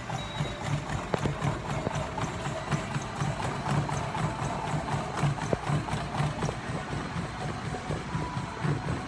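Running footfalls pounding a treadmill belt in a steady quick beat, about three a second, over the continuous hum of the treadmill running.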